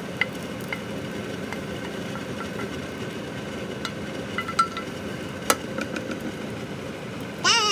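A wooden spatula scrapes fried rice from a nonstick frying pan into a ceramic bowl, with a few sharp taps and clicks against the pan and bowl, over a steady mechanical hum. Near the end a short voice cuts in loudly.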